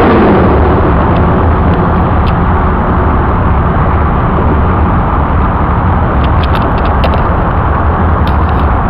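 Steady motor-vehicle engine rumble and traffic noise with a deep low hum, with a few light clicks in the second half.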